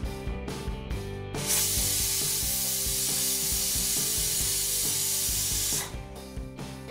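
Pressure cooker whistle blowing: the weight valve lifts and steam rushes out in a loud hiss for about four seconds, then cuts off sharply. The whistle is the sign that the cooker has come up to pressure, and each one is counted toward the two whistles the rice is cooked for.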